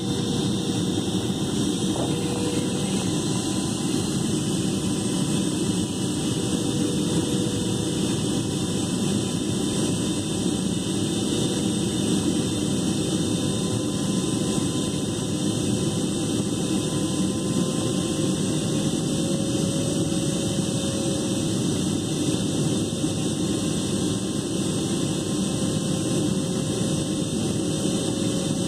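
Steady cabin noise of a Boeing 777-300ER on approach, heard from a window seat beside the engine: the GE90-115B turbofans running and air rushing past the fuselage as an even roar, with faint tones that drift slightly in pitch.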